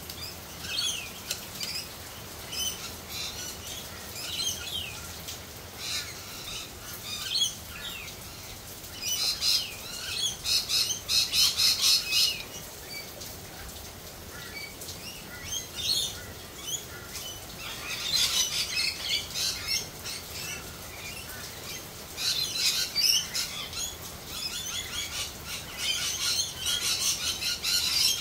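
A flock of parrots screeching and chattering in harsh bursts. The loudest bursts each last a second or several, with quieter calls in between.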